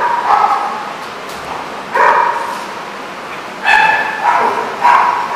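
A dog barking in short, high-pitched yips while playing: one bark at the start, another about two seconds in, then three in quick succession near the end.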